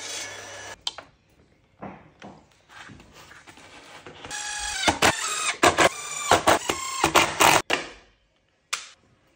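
A pin nailer firing a quick series of pins into a white panel strip: about a dozen sharp clicks, some with a short ringing tone. In the first second, a table saw runs and then stops abruptly.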